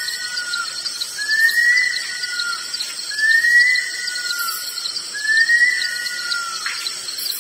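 Bush stone-curlew calling: a repeated wailing whistle, each call rising and then dropping into a lower, drawn-out falling note, about once every two seconds.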